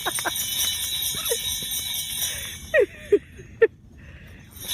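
Sleigh bells worn around a person's neck jingling with her movement, falling quiet about three and a half seconds in. A few short, sharp, loud sounds come just before the jingling stops.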